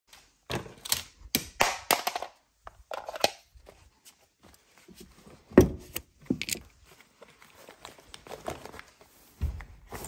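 Handling noise from a pocket knife and other small items being picked out of a wooden tray and the knife clipped into a trouser pocket: a run of clicks and knocks, one louder thump about halfway through, and cloth rustling.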